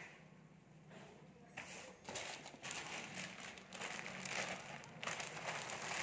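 Plastic packaging crinkling and rustling as it is handled, starting about a second and a half in and going on as a dense, crackly rustle.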